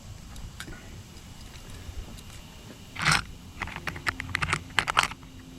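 Small metal cable lugs being handled and sorted by hand. There is a brief rustle about three seconds in, then a quick run of about a dozen clicks and rattles.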